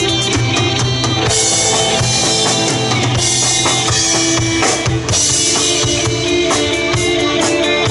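A live pop-rock band playing an instrumental passage: a drum kit with bass drum and snare hits out front, over electric guitars, bass guitar and keyboards. The sound dips briefly about five seconds in.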